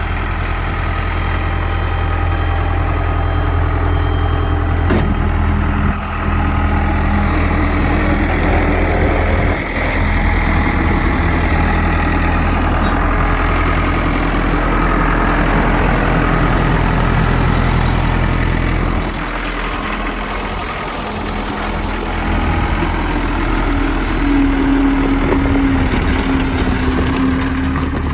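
Case 1840 skid steer's diesel engine running steadily, its note shifting several times as the load or throttle changes, with a higher steady whine coming in near the end.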